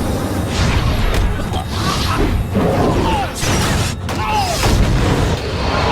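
Animated fight-scene soundtrack: dramatic score under a constant low rumble, with booms and several sharp hits, and a few short gliding tones.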